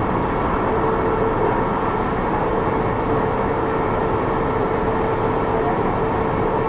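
Toulouse metro's rubber-tyred VAL train running at speed, heard from inside the car: a steady rumble of running noise with a held whine that sets in about a second in.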